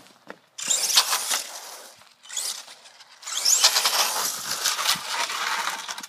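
Traxxas E-Revo brushless RC truck, batteries wired through a series connector, driven in two bursts of throttle: a rising electric motor whine over a loud hiss of tyres and spray on wet pavement. The first burst is about a second and a half long; the second starts about three seconds in and is longer.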